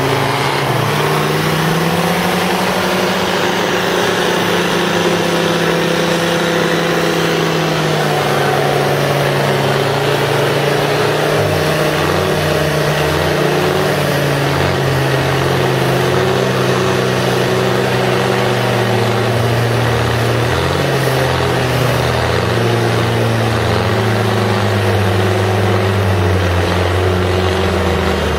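Land Rover TD5 five-cylinder turbodiesel engine running hard under load as the Discovery pulls on a tow strap in deep mud, its revs rising at the start and shifting up and down several times.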